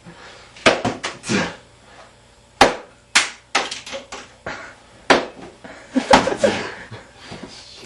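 Thrown floppy disks hitting walls and furniture: about half a dozen sharp slaps at irregular intervals, with brief bits of voice between them.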